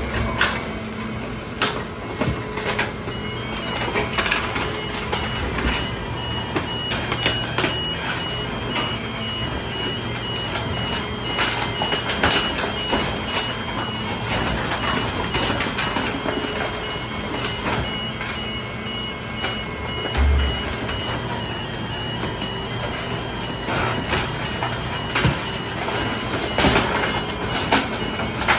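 Crushr dumpster grinder truck at work: the engine and hydraulics run steadily while the spiked steel drum crunches and bangs debris down in a steel roll-off dumpster. A rapid pulsing warning beeper sounds through most of it, stopping a few seconds before the end.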